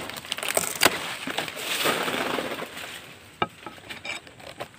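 A dao blade hacking at the stalk of a toko palm frond. There are a few sharp chops, at the start, just under a second in and about three and a half seconds in, with stiff palm leaves crackling and rustling between them.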